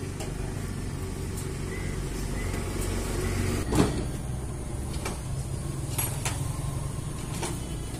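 Steady low background rumble, with one sharp knock just before four seconds in and a few lighter clicks, as the chainsaw's oil-pump parts are handled.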